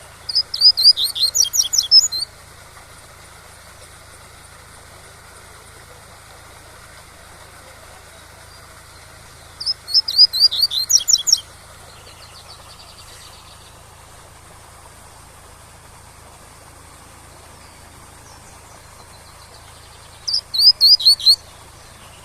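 Double-collared seedeater (coleiro) singing its 'tui-tui' song: three short phrases of quick, repeated high sweeping notes, about ten seconds apart. A steady waterfall rush runs underneath.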